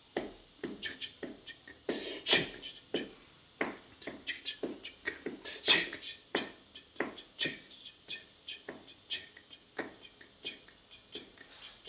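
A man making short, breathy percussive mouth sounds (puffs, clicks and hisses) in an irregular stream of several a second, one louder near the middle, as part of an improvised voice-and-movement piece.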